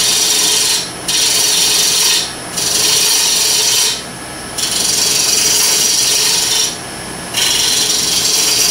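Small gouge making repeated push cuts on a Bradford pear bowl blank spinning on a wood lathe at about 688 RPM: a hissing scrape as long shavings peel off, five passes of a second or two each. In the short breaks between passes only the lathe's steady motor hum is heard.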